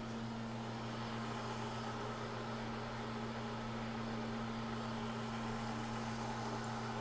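Bridgeport milling machine running at low spindle speed with a steady hum, as an adjustable boring head takes a slow cut through a throttle body spacer.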